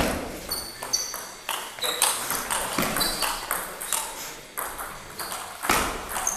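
Table tennis rally: the ball clicking sharply off paddles and the table about twice a second, some hits carrying a brief high ping, with one louder hit near the end.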